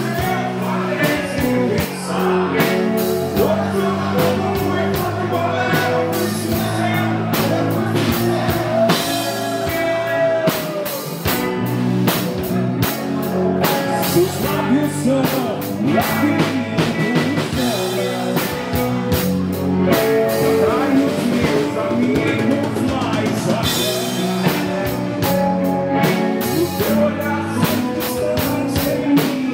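Live rock band playing: electric guitars over a drum kit, sustained guitar notes with some bends.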